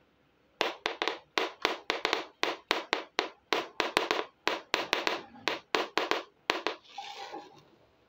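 Hard plastic toy frying pan being tapped, a quick run of sharp clicks about three or four a second for some six seconds, then a brief scraping rustle as it is set down.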